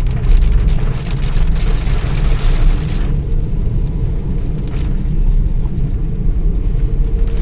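Inside a moving car on a wet road: a steady low rumble of tyres and engine, with rain ticking on the windscreen and roof that thins out about three seconds in.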